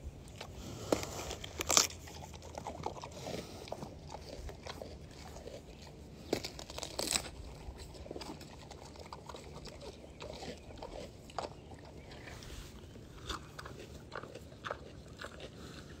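A pig biting into a whole watermelon and chewing it, the rind giving sharp crunches. The loudest crunches come about two seconds in and again about seven seconds in, with smaller bites and chewing between.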